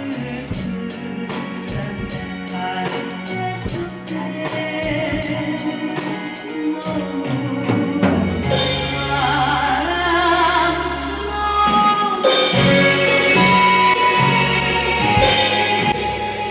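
Drum kit played along to a recorded Korean pop song with a female singer. Steady hi-hat strokes keep time in the first half; about halfway through the music swells, with the singing and cymbal crashes coming in louder.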